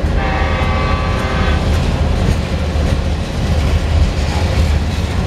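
Tropicana refrigerated boxcars of a freight train rolling past at close range: a steady low rumble of steel wheels on rail. A pitched tone sounds for about a second and a half near the start.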